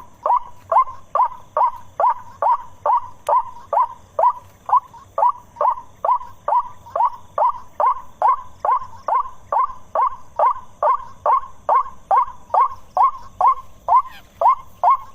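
White-breasted waterhen (ruak-ruak) calling: a loud, monotonously repeated note about twice a second, each note sliding down in pitch.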